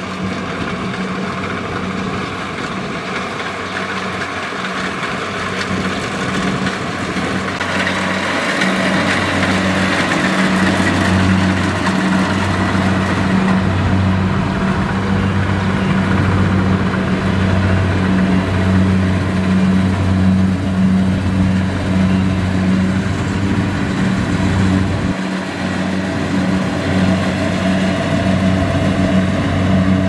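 Kubota DC70 rice combine harvester's diesel engine running steadily while harvesting, with a constant low hum. It gets louder about a quarter of the way in as the machine comes close, and eases slightly near the end.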